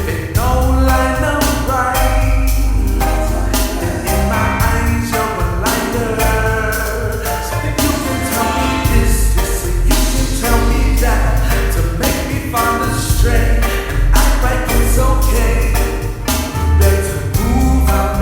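Music with singing: a gospel-style song with a strong bass, steady percussion and voices.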